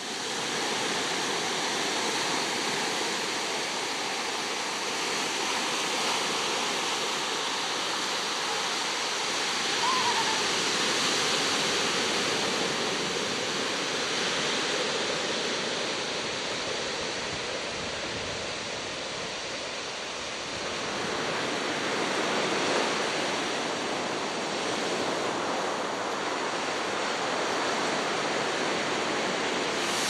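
Ocean surf washing onto a rocky beach: a steady rush of breaking waves that swells and eases slowly, with one short high chirp about ten seconds in.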